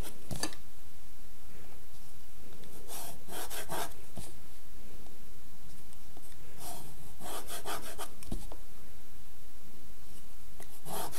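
Pencil drawing lines on paper along the edge of a plastic 30-60 set square, in four bursts of several quick strokes about every three and a half seconds, with one dull knock about eight seconds in.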